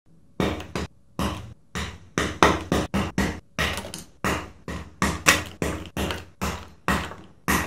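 Popcorn kernels popping inside a small homemade popcorn machine made from soda cans: irregular sharp pops, about two to three a second, each with a short ringing tail off the machine's walls.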